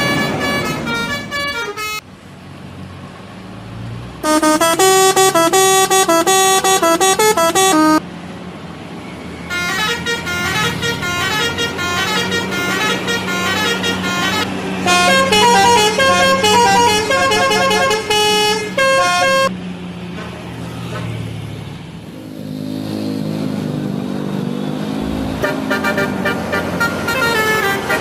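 Bus telolet horn, a multi-tone air horn, playing quick melodies of short stepped notes in several loud bursts separated by brief pauses, with the bus engine running steadily underneath.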